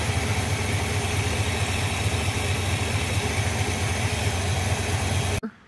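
A Ford 460 big-block V8 (7.5 litres) in a 1980 Bronco idling steadily, with a deep, even low rumble. The sound stops abruptly near the end.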